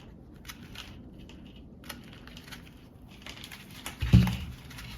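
Close handling of a tangled Sabiki rig and foam organizer: small scattered rustles and clicks of line, hooks and plastic, with a single dull thump about four seconds in.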